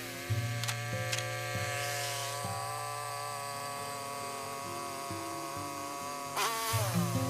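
Background music: sustained guitar-like notes over a bass line that steps from note to note, with a strummed, sliding chord near the end.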